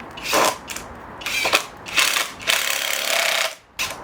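Power drill driving a screw in several short bursts of whirring and ratcheting, stopping and starting.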